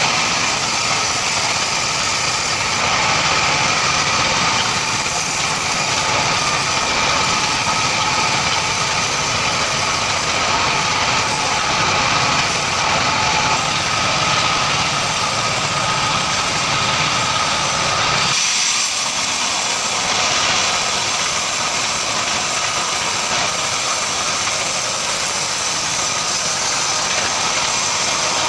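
Band sawmill running and cutting marsawa timber: a steady mechanical whine with a high ringing tone. About two-thirds of the way through, the low rumble drops away while the high whine carries on.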